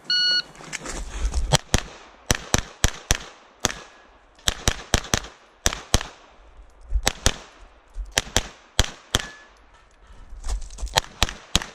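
Electronic shot-timer start beep, then a semi-automatic pistol fired in rapid pairs of shots, each with a short echo, with brief pauses between strings as the shooter moves between positions.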